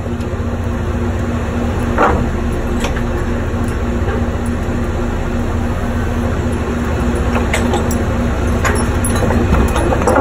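Drilling rig machinery running with a steady low rumble and hum, with a few sharp knocks from work on the rig floor, the loudest about two seconds in.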